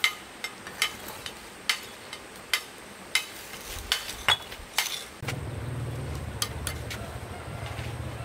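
Irregular sharp knocks and clinks of hard objects, one or two a second. About five seconds in, a steady low rumble begins.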